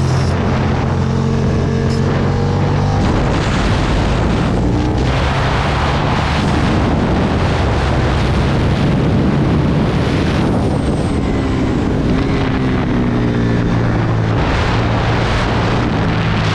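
Aprilia Tuono motorcycle engine running hard under heavy wind noise, its pitch rising and falling with throttle and gear changes during a track session.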